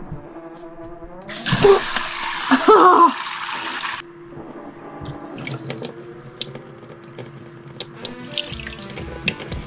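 Water running from a newly installed residential kitchen faucet into the sink. A loud rushing sound starts about a second in and cuts off abruptly after a few seconds, then a thin stream patters onto a hand and into the sink. The owner suspects the weak flow comes from the faucet's bigger lines, or from low water pressure at the site.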